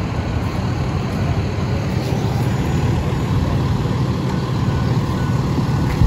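A vehicle engine rumbles steadily and low, with no distinct knocks or changes.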